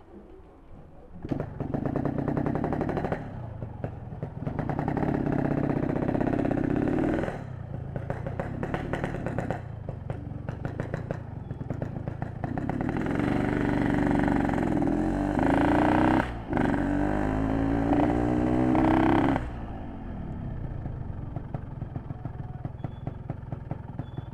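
Ported Yamaha RX-King two-stroke single-cylinder motorcycle engine revving in several surges, the pitch climbing and dropping, then settling to a steady idle for the last few seconds.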